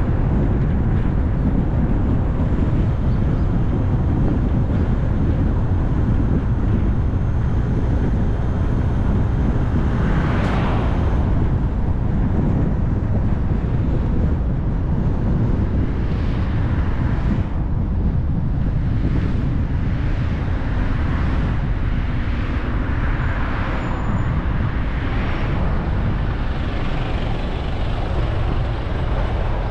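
Car driving on a road: a steady low rumble of tyres and road noise with some wind. Several brief rushes of sound go by, the loudest about ten seconds in and others in the second half.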